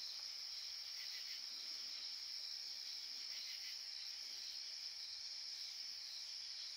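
Chorus of night insects trilling steadily, a continuous high-pitched sound.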